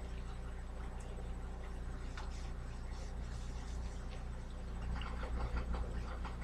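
Faint rubbing and scratching of a wet cloth scrubbing a stove's surface, with a few light clicks, over a steady low hum.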